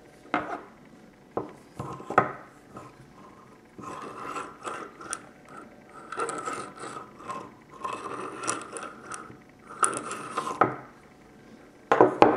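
The steel bolt and return spring of an Erma EMP-35 submachine gun being handled on a wooden table. A few sharp metal clicks come first, then several spells of rasping, scraping metal, and loud knocks near the end.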